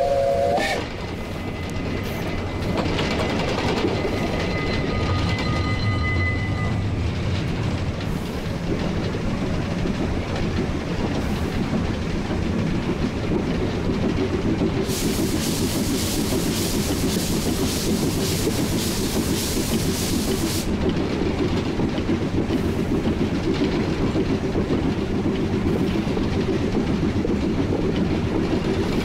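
A 1943 Davenport steam locomotive running, heard from the cab: a steady rumble with the clickety-clack of wheels over rail joints. Its whistle cuts off within the first second. A loud hiss comes in about halfway through and stops after about six seconds.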